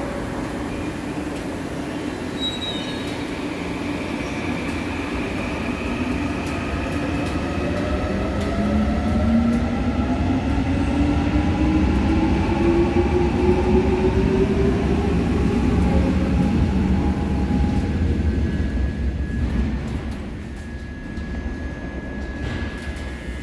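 Electric subway train pulling into the station and braking to a stop, its traction motors whining in several tones that shift in pitch, one rising steadily, over a low rumble. The noise swells, then falls away about twenty seconds in as the train halts, leaving a steady high tone.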